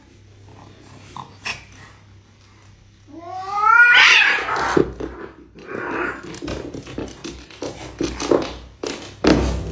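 A domestic cat gives a loud yowl that rises in pitch about three seconds in. It is followed by a run of sharp clicks and scuffling noises, with a heavy thump near the end.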